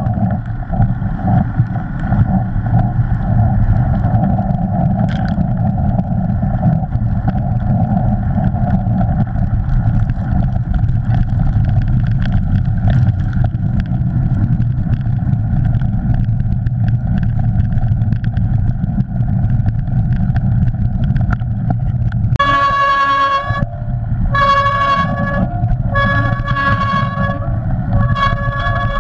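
Mountain bike ridden fast over muddy trail: steady wind rush and tyre noise on the bike camera's microphone. In the last few seconds a mountain bike's freewheel hub buzzes in four or five short spurts as the rider alternately coasts and pedals.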